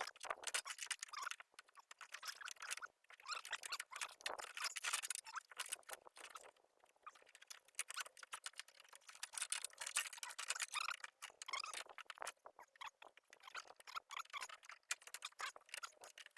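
Faint, irregular scratching, rustling and small clicks of a wiring harness and its plastic connectors being worked by hand through a truck door, in uneven flurries.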